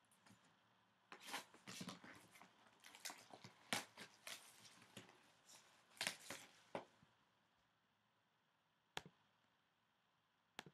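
Clear plastic shrink-wrap crinkling and crackling in irregular bursts for several seconds as it is pulled off a hockey card box. Two sharp clicks follow near the end as the box is handled on the table.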